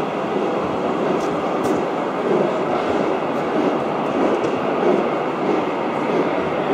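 Gauge 1 model train rolling along the track, giving a steady rumble of wheels on rail with a few faint clicks.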